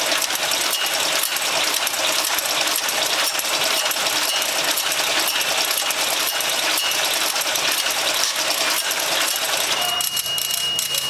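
Automatic incense-stick (agarbatti) making machine running at speed: a dense, rapid mechanical clatter of feeding and extruding sticks. About ten seconds in the clatter thins out and the controller sounds a steady high beep, an error alarm as the machine stops.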